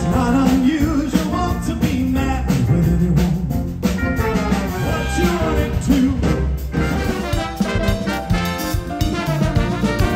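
Live band music with brass and a male singer. The sound changes abruptly about seven seconds in, where one performance clip cuts to another.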